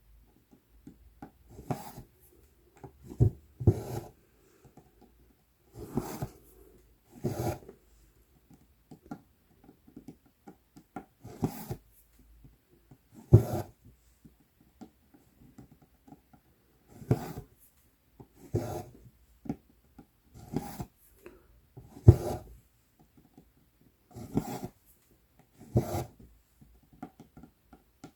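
Embroidery floss and a tapestry needle being drawn through 11-count Aida cloth in repeated cross stitches: about a dozen short rasping pulls, one every second or two, some with a soft low thump.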